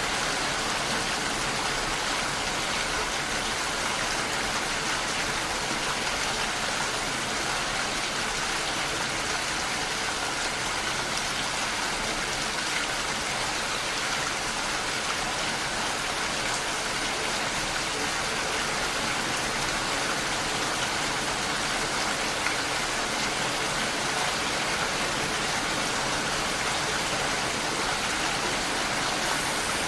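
Steady rainfall, an even unbroken hiss of rain that does not let up.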